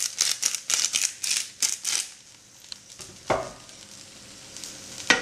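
Kitchen utensil sounds over a pan of frying rice: quick scratchy strokes, about four or five a second, for roughly two seconds. Then comes a short ringing clink, and near the end a louder knock.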